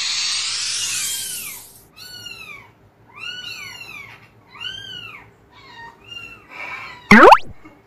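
A kitten meows over and over in short, high-pitched calls that rise and fall, about one a second. At the start a loud rising whoosh fades out about two seconds in. A brief, very loud sweep cuts across near the end.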